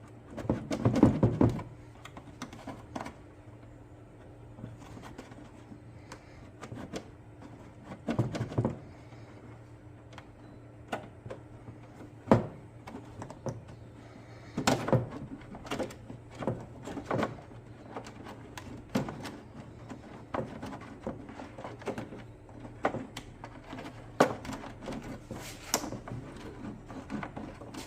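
Plastic headlight housing and its bulbs and fittings being handled and worked apart by hand: scattered clicks, knocks and rattles, with a clatter about a second in and a sharp knock near the middle, over a faint steady hum.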